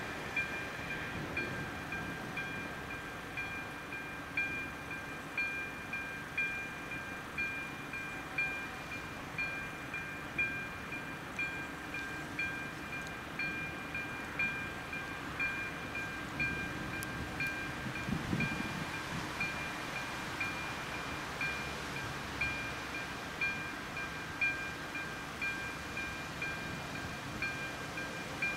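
Electronic bell of an AŽD 97 level-crossing warning signal ringing steadily, about one ding a second: the crossing is active and closed for an approaching train.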